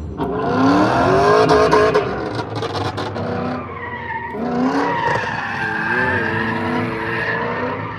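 Chevrolet Lumina drifting: the engine revs rise and fall while the tyres squeal and skid, loudest in the first two seconds.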